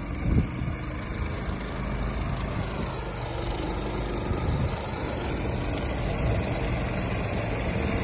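Mud-Skipper surface-drive mud motor running under way on a 14-foot boat, a steady engine drone that slowly grows louder as the boat comes closer.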